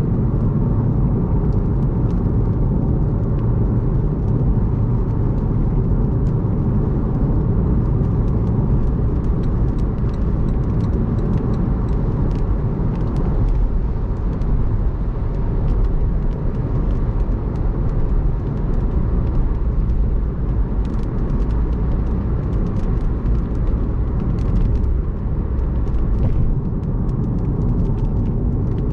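Steady low road and engine rumble of a car driving at expressway speed, heard from inside the car, with scattered faint ticks of rain hitting the windshield.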